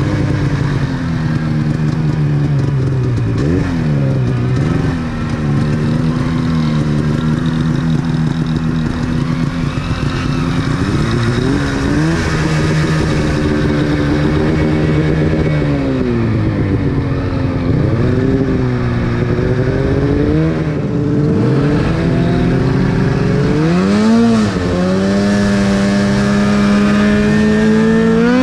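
Two-stroke mountain snowmobile engine running under way, its pitch rising and falling again and again as the throttle is worked, climbing sharply about 24 seconds in and holding higher near the end.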